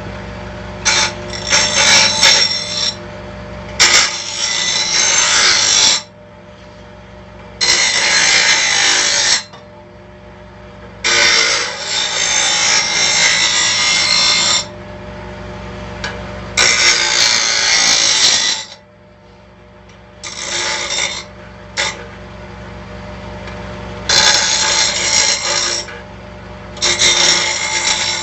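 Bench grinder motor running steadily while a piece of metal is pressed to the wheel in repeated passes, each grinding pass a loud hiss lasting a second or three, about eight times.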